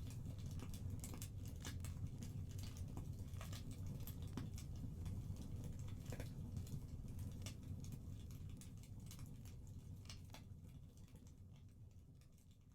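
Fireplace wood fire crackling, with irregular snaps and pops over a low rumble. It fades out near the end.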